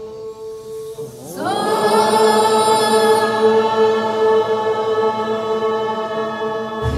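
A group of voices chanting in unison on one long held note; about a second in the pitch slides upward and the chant swells louder, then holds steady.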